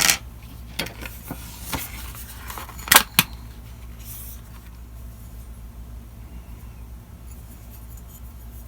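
A few sharp clicks and clinks as a heavy metal multi-tool and its carrying clip are handled, the loudest a quick pair about three seconds in; after that only a faint steady low hum.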